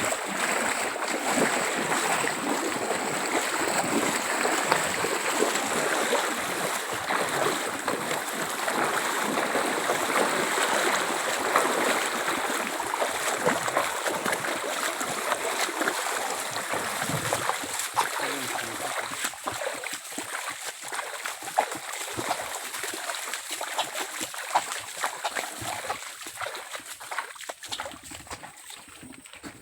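Stream water running and splashing, fading gradually over the second half, with a steady high-pitched tone above it.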